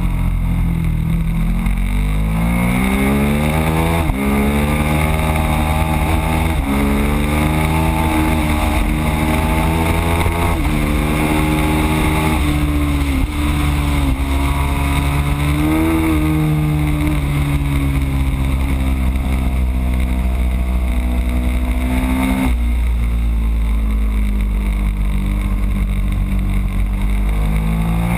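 Ducati Streetfighter's L-twin engine at full throttle on track. Its pitch climbs and drops back with several quick upshifts in the first dozen seconds, falls away for several seconds as the bike slows, and climbs again near the end, over constant wind rumble on the microphone.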